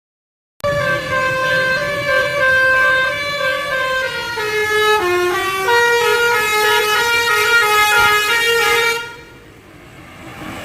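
Tour bus 'telolet' musical air horn playing a tune of held notes that steps up and down in pitch, starting abruptly about half a second in and stopping about a second and a half before the end, where a quieter noise follows.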